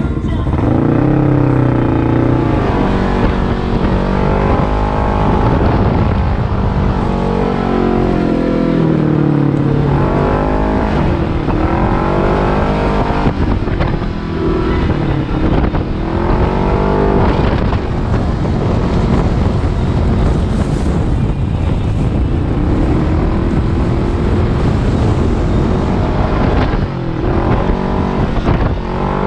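Kawasaki KRX 1000 side-by-side's parallel-twin engine running under throttle, its pitch rising and falling over and over as the driver gets on and off the gas.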